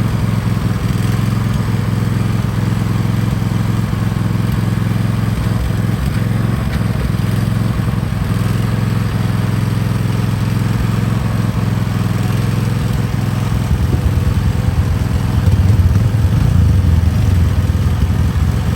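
Four-wheeler (ATV) engine running steadily at idle, getting louder about fourteen seconds in.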